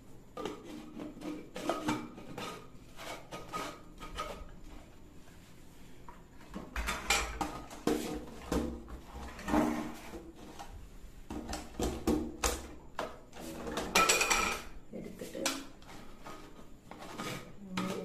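Plastic jars, lids and blade bases of a bullet mixer grinder clicking and knocking against each other and the table as they are handled, with a jar twisted onto the motor base; irregular clatter with louder knocks in several clusters. The motor is not running.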